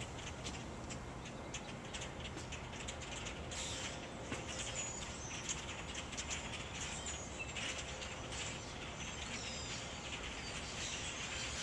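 A large flock of birds chattering in the trees: many short chirps overlapping in a steady din, growing denser about three and a half seconds in.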